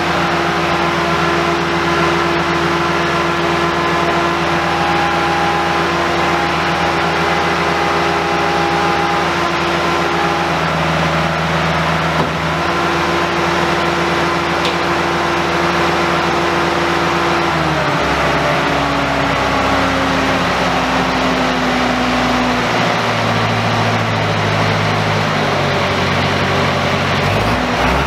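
Engine of an old Clark Bobcat 825 skid steer running steadily with a whine that the owner puts down to the hydraulic pump running on low hydraulic fluid. About two-thirds of the way through, the engine slows and its pitch falls.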